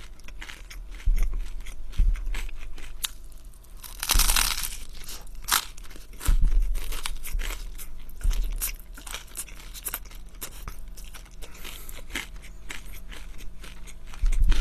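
Close-miked eating: chewing with many short crisp crunches and mouth clicks, and spaghetti slurped off a fork.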